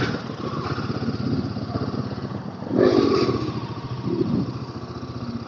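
Royal Enfield Himalayan 452's single-cylinder engine running as the motorcycle rides off, growing louder for a moment about three seconds in.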